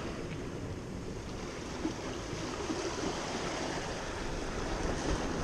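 Steady rush of ocean surf washing against the rocks of a jetty.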